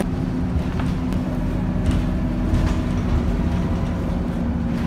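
Interior of a moving city bus: a steady low engine and road rumble with a constant drone, and a few light rattles.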